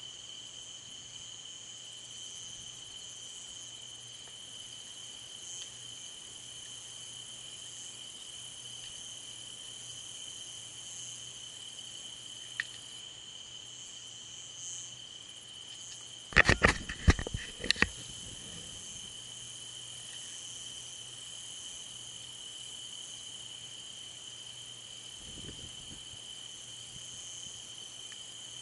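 A steady chorus of night insects chirring, with a low hum beneath. About sixteen seconds in comes a quick run of sharp knocks lasting about a second and a half, the loudest sound.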